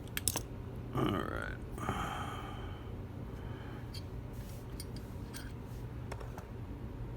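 Small metal lock parts being handled, making scattered sharp clicks and taps. A short vocal sound comes about a second in, and a low steady hum runs underneath.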